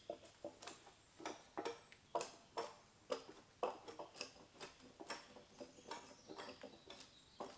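Hatchet striking wood in quick, even strokes, about two a second: shaping or trimming a wooden stick by hand.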